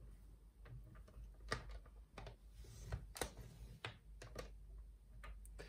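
A few faint, irregular clicks and light scraping as a paper trimmer's scoring blade housing is slid along its rail to score a fold line into cardstock.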